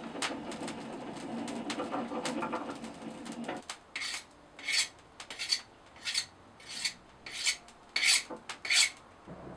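Short scraping strokes of a hand tool across a steel knife blade, about nine of them at a little over one a second. Before them, a low rumbling noise stops abruptly about three and a half seconds in.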